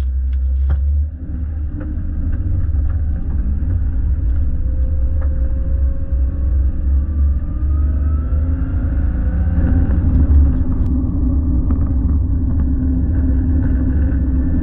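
A motor vehicle driving, with a heavy, steady low rumble. Faint whining tones rise slowly in pitch over several seconds around the middle, as the vehicle picks up speed.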